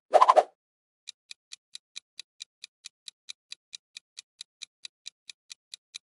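Clock-ticking sound effect for a quiz countdown timer, evenly spaced ticks at about four and a half a second, starting about a second in. Just before it, a brief loud sound effect marks the change to the new question.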